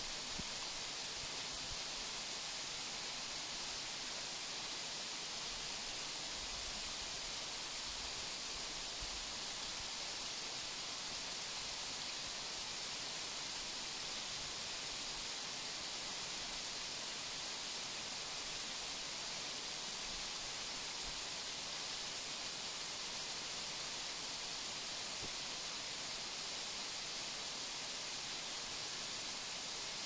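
Waterfall: an even, unbroken rush of falling water, heavy on the hiss.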